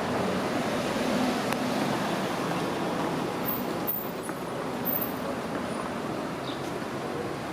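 Steady street traffic noise, an even wash of passing vehicles, with a faint click about one and a half seconds in.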